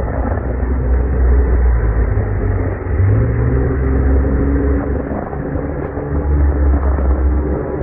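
UTV engine running as the vehicle drives along, with a steady low rumble and the engine note rising about three seconds in.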